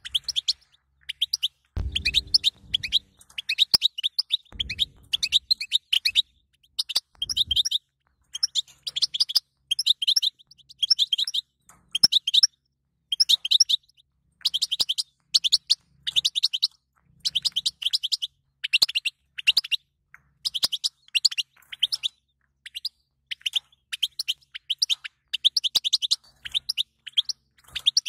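European goldfinch twittering: fast bursts of short, high chirps and trills, one cluster after another with brief gaps. A few low thuds come about two, five and seven seconds in.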